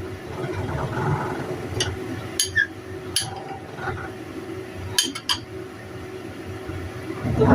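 Utensils clinking against a dish a handful of times, sharp and irregular, over a steady low rumble of background noise that the cook blames on work being done upstairs.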